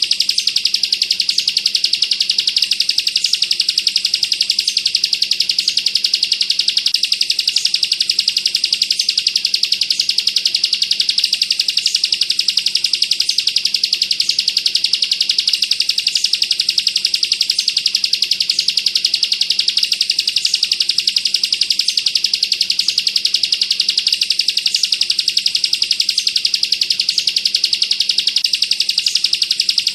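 Ciblek, a small prinia, singing a fast, unbroken high trill of closely packed notes: the 'bren rapat' rattle prized by Indonesian bird keepers.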